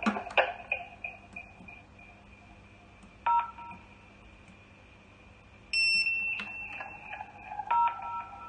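Electronic telephone beeps: a short two-tone keypad beep about three seconds in, a louder, higher single beep about six seconds in, and another two-tone keypad beep near the end, with a faint steady high tone underneath. A few clicks at the start as the handset and board are handled.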